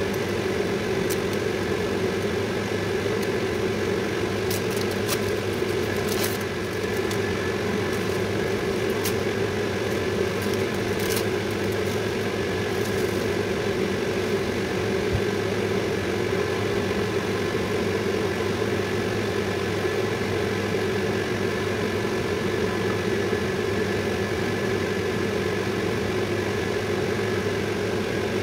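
Steady mechanical hum, like a running motor or fan, unchanging throughout, with a few faint ticks in the first half.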